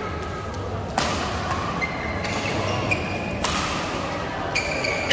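Badminton rackets striking the shuttlecock in a doubles rally, a sharp crack about once a second, with shoes squeaking on the court mat after several hits. The hits echo in a large hall over a steady murmur of voices.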